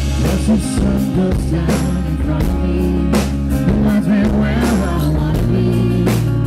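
Live acoustic rock played through a PA: two acoustic guitars strummed to a steady beat, with a man singing.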